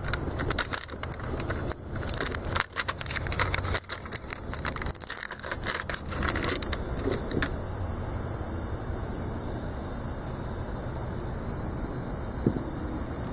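Irregular clicks, crackles and rattles of hands handling a tire plug repair kit: the plugs and the insertion tool. From about halfway a steady hiss sets in, air escaping from the reamed puncture in a lawnmower tire.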